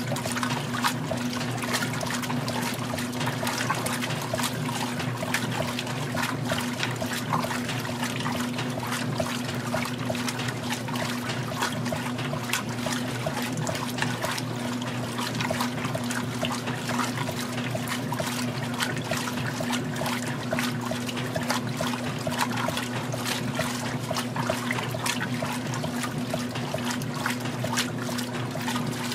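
Magic Chef 20-pound top-load washer agitating in the rinse: water sloshing and churning around the finned centre-post agitator, over a steady motor hum.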